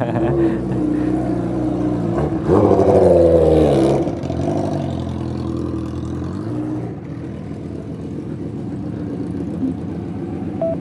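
Motorcycle engines running at idle, with one sportbike revving up and pulling away about two and a half seconds in, its pitch rising and then falling before the sound settles back to a steady idle.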